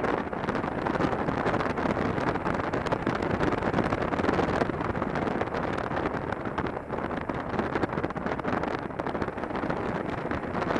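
Wind rushing over a helmet-mounted camera's microphone on a moving motorcycle, a steady loud roar with the motorcycle's running noise mixed in.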